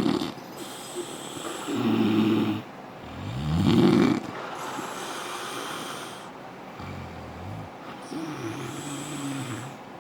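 A man snoring loudly in his sleep: a few separate snores, the loudest about four seconds in rising in pitch, then softer snores toward the end.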